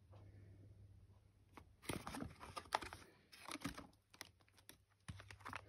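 Faint clicks, rustles and scrapes of cardboard medicine boxes being handled on a shelf, coming in several short clusters.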